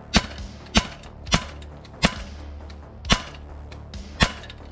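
Sig Sauer P226 CO2 air pistol firing lead pellets semi-automatically with its blowback action: six sharp shots at uneven intervals of roughly half a second to a second, each cracking off sharply with a short ring after it as the pellet strikes the target box.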